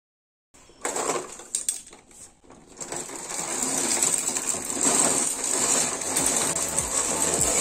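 Hundreds of plastic ballpoint pens clattering out of a tipped cardboard box onto a hard stone floor. A few separate clicks about a second in, then a dense, steady rattle of pens sliding and hitting the floor from about three seconds on.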